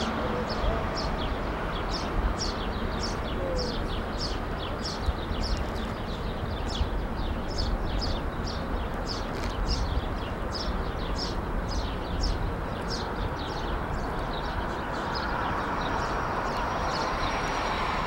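Steady low rumble with a continuous run of small high-pitched bird chirps, two or three a second.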